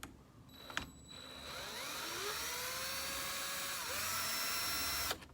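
Power drill spinning up and running steadily for about four seconds while backing out a long screw, with a short dip partway through, then stopping suddenly.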